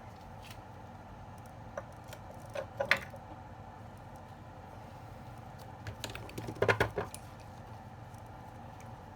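Small hard tools and parts clicking and clattering on a workbench in two brief bursts, about three seconds in and again around six to seven seconds in, over a steady faint hum.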